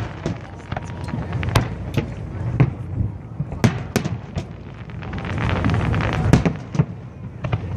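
Fireworks going off, a string of irregular sharp bangs and crackles, several a second at times, over a steady low rumble.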